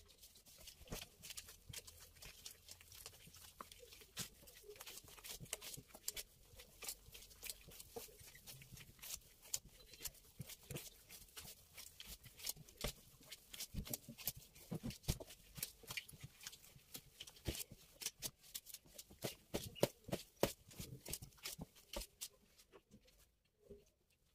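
Hands working a soft, sticky semolina bread dough: quick, irregular wet slaps and squelches, several a second, that go on throughout.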